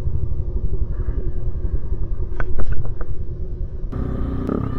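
Motorcycle on the move, heard as a heavy low rumble of wind and engine on a rider-mounted camera. A quick cluster of sharp clicks about halfway through is the loudest moment.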